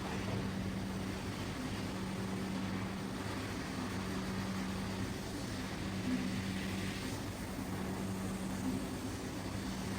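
A small electric motor running steadily: an even hum with a hiss over it.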